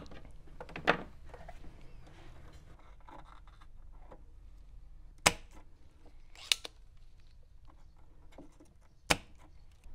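Wire cutters snipping through old hookup wires inside a tube amp chassis: a softer snip about a second in, then three sharp snips spread over the following seconds, with light handling and rustling of wires between them.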